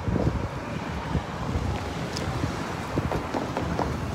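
Wind buffeting the microphone: a steady low rumbling noise over faint city-street background.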